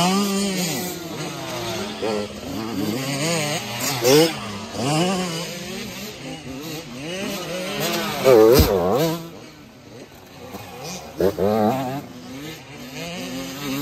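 Youth dirt bike engines revving up and down as riders pass one after another, the pitch rising and dropping with each throttle blip and gear change. The loudest, closest pass comes a little past halfway.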